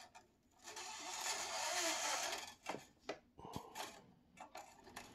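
A wound low E guitar string drawn through the hole of a tuner post, a scraping hiss lasting about two seconds, followed by a few light clicks as the string is handled.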